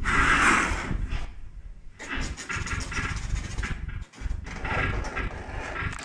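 Live electronic noise improvisation from a laptop running Max/MSP and played with a monome: dense, grainy noise textures over a rumbling low end. It drops out sharply for a moment about four seconds in, then resumes.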